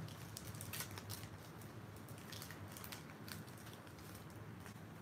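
Foil wrapper of a Pokémon booster pack crinkling and crackling in a string of faint, irregular clicks as it is torn open and the cards are pulled out.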